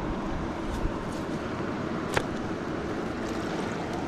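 River water rushing steadily past a stony bank, with a single sharp click about two seconds in.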